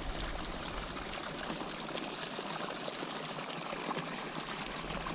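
Water pouring steadily into a pond from an inflow: fresh runoff after rain.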